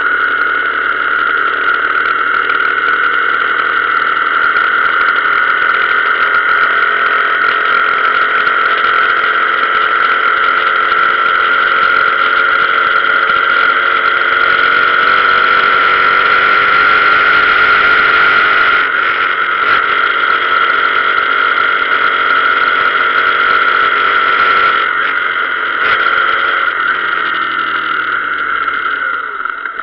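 Motorcycle engine running steadily while riding, heard from on the bike. Its note breaks briefly twice in the second half, then falls near the end as the bike slows.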